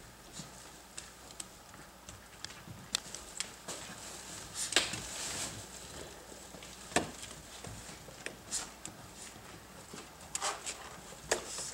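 Hound puppies and their mother shifting about on a raised cot in a kennel pen, making scattered soft clicks, taps and rustles. There is a brief louder rustle about five seconds in.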